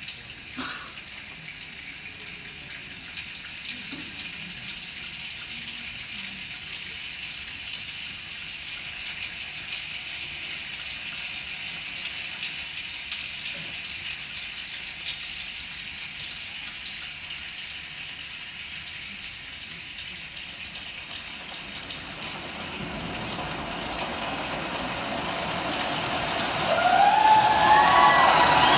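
A large choir imitating a rainstorm with body sounds, a rain-like hiss that grows steadily louder and denser. About 22 s in, a deep rumble joins as the storm builds, and near the end the choir's voices come in singing.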